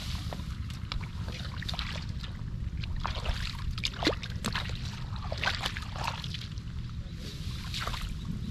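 Shallow rice-field water sloshing and splashing in irregular bursts as someone works through it by hand, the loudest splash about halfway through. Under it runs a steady low rumble, likely wind on the microphone.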